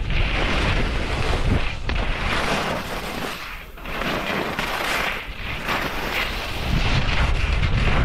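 Skis scraping and hissing over thin snow during downhill turns, swelling and easing with each turn, with wind rushing over the microphone.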